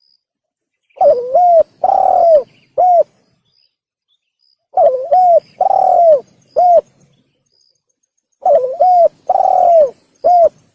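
Male spotted dove cooing in three repeated phrases, one about every four seconds. Each phrase is two quick coos, a longer drawn-out coo that drops at the end, and a short final coo. This is the call used as a lure for the bird.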